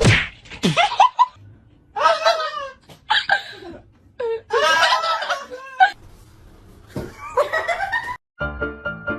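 A person laughing in several bursts, opening with a high falling cry. Music cuts in near the end.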